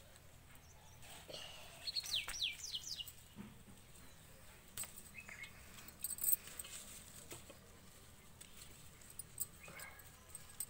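A small bird chirps a quick run of falling whistled notes about two seconds in, with a few shorter calls a little later. Sharp snips of scissors cutting chrysanthemum stems click now and then throughout.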